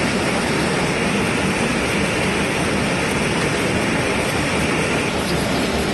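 Bangseong Machinery New Art Line rotary printing press running: a loud, steady mechanical din, with a faint rapid ticking coming in near the end.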